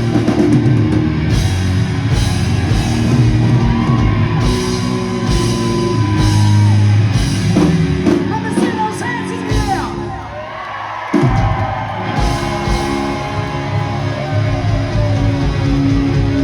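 Hard rock music: a singer over drums, cymbals and electric guitar. Around ten seconds in, the drums and bass drop out for about a second, then the full band comes back in suddenly.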